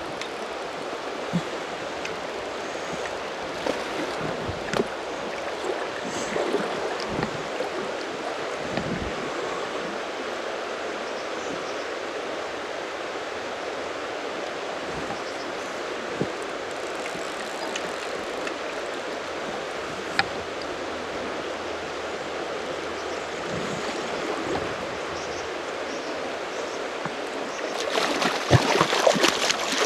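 Steady rush of river water flowing, with a few faint clicks. Louder splashing near the end.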